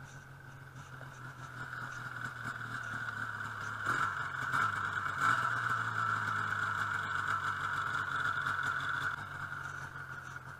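Snowmobile engine running steadily, growing louder over the first few seconds and easing off a little over a second before the end.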